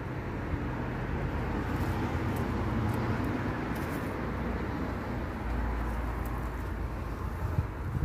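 Steady rumble of road traffic, swelling a little a few seconds in.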